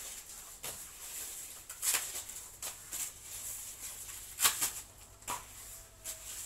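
Pruning shears snipping tiger grass stalks: several sharp clicks at irregular intervals, with the rustle of the long leaves being handled.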